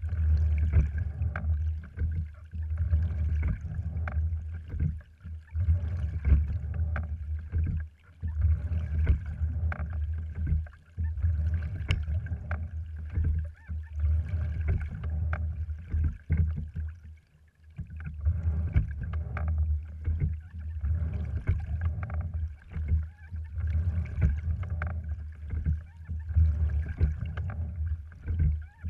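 A cedar-framed, cloth-covered sliding-seat rowing wherry under way, heard from on board: a steady low rumble that swells and eases with each stroke every few seconds, with frequent short clicks and knocks from the rowing gear.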